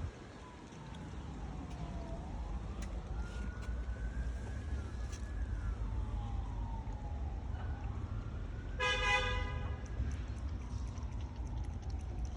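Siren wailing, its pitch sliding slowly up and down, over a low traffic rumble, with a single horn honk lasting about a second, nine seconds in.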